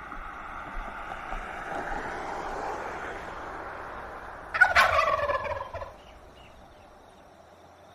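Turkey gobbling: a low steady background of calls, then one loud gobble about four and a half seconds in that falls in pitch and fades out about a second and a half later.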